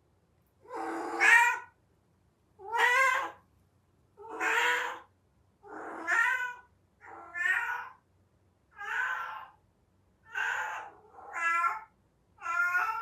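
A domestic cat in heat giving the repeated, drawn-out call typical of the heat cycle: about nine wavering yowls, each under a second long, coming roughly every one and a half seconds, some in two linked parts.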